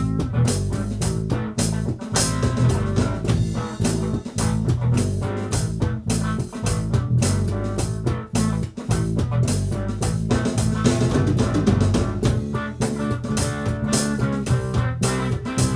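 A live funk band jam: an electric bass guitar plays a busy, prominent bass line over an electronic drum kit's steady beat, with electric guitar joining in.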